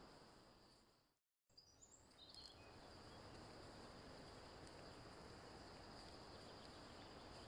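Near silence: only a faint room-tone hiss, with no peeling or handling sounds audible.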